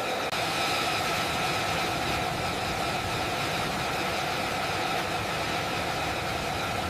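Jet aircraft engine running at idle: a steady hiss with a constant whine held at several pitches, unchanging throughout.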